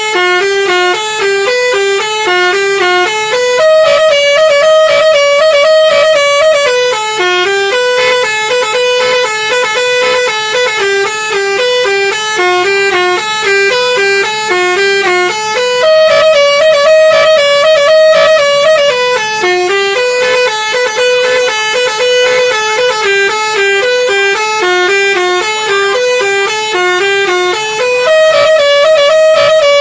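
Basuri telolet musical bus horn playing a tune: a melody of held notes stepping up and down, with the phrase coming round again about every twelve seconds.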